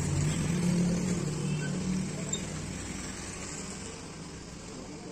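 A motor vehicle's engine hum that fades after about two seconds, over a steady hiss of road traffic.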